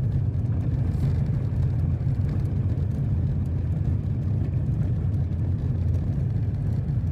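Jeep Wrangler Rubicon 4xe driving slowly along a dirt road: a steady low rumble of the vehicle and its tyres on the dirt.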